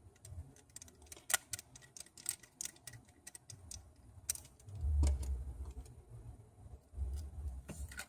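Small sharp clicks and taps of metal tools and small phone parts being handled during iPhone 6 Plus reassembly, with low dull thumps of handling on the work surface about five seconds in and again near the end.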